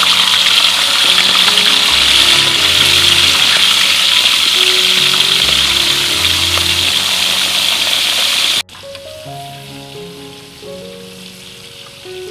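Small whole fish frying in hot oil in a metal wok: a loud, steady sizzle that cuts off suddenly about three-quarters of the way through, leaving soft background music.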